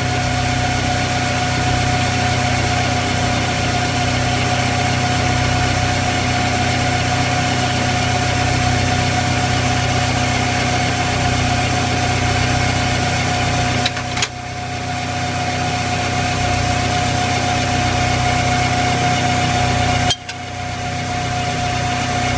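Automatic screw machine (auto lathe) running steadily while turning a pin from bright round steel bar under a flood of cutting oil, a steady whine over a low hum. It breaks twice, about fourteen seconds in and near the end, with a short click and a brief dip before settling again.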